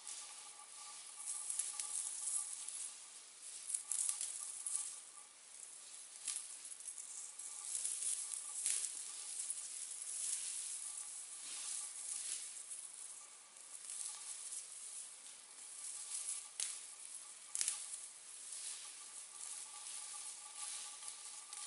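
Wood fire burning, crackling and hissing, with frequent irregular sharp pops; the loudest pops come about four seconds and about seventeen seconds in.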